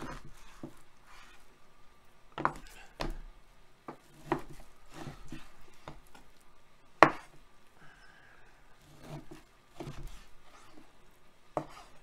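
Chef's knife slicing raw beef into strips on a plastic cutting board: a series of irregular knocks as the blade comes down on the board, one sharper and louder about seven seconds in.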